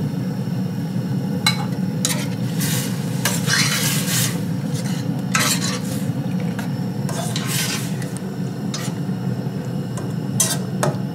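Metal spoon stirring vegetables and tomato sauce in a stainless steel sauté pan, with irregular scraping swishes and sharp taps of the spoon against the pan as the mixture sizzles. A steady low hum runs underneath.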